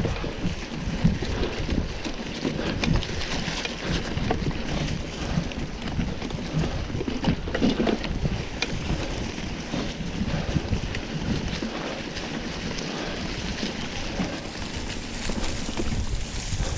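Mountain bike ridden over a dirt trail: wind buffeting the microphone, tyre rumble, and frequent short rattles and knocks from the bike on rough ground.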